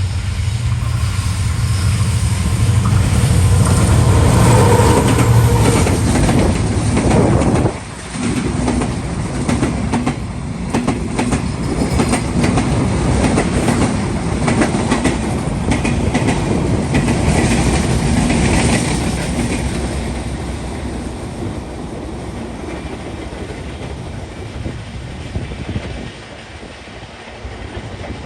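An intercity passenger train passing close by: the diesel locomotive's engine rumble for the first several seconds, then cuts away abruptly as the coaches follow. The coaches clatter and click over the rail joints, and fade in the last few seconds as the train moves off.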